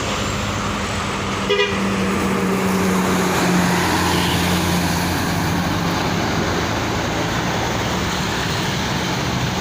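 Large bus engine running under load as the bus climbs a steep hill, a steady low drone amid road noise, with a brief sharp sound about a second and a half in.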